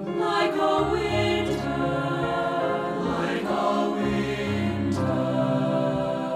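Three-part choir of soprano, alto and baritone singing held notes with piano accompaniment.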